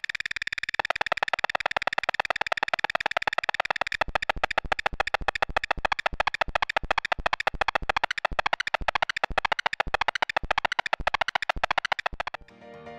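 Electronic synthesizer music built from rapid, evenly spaced pulses, with a bright high buzz over the first four seconds. Near the end the pulsing stops and soft keyboard notes begin.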